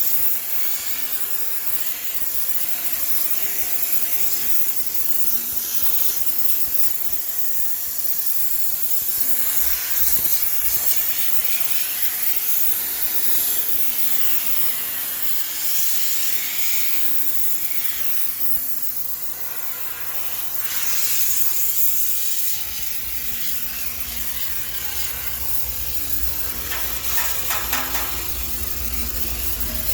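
High-pressure steam cleaner hissing as its jet sterilizes a washing machine. The hiss swells and fades as the nozzle moves. A low rumble joins about two-thirds of the way through, and there is a brief run of rapid clicks near the end.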